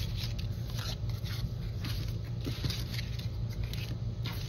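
Paper and cardstock die-cut pieces rustling and scraping against each other and the tabletop as they are handled and shuffled, in small irregular ticks, over a steady low hum.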